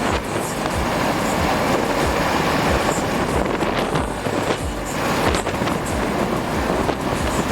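Strong squall wind blowing across the microphone: a dense, steady rush with irregular low buffeting thumps.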